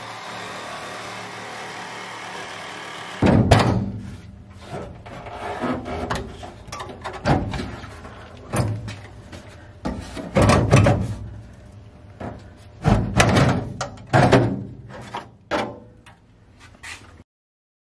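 A small angle die grinder with a sanding disc running steadily against the sheet-steel floor seam, stopping suddenly about three seconds in. Then irregular loud thunks and clanks of loose sheet-metal floorpan being knocked about and worked free of the body shell, with lighter rattling between them.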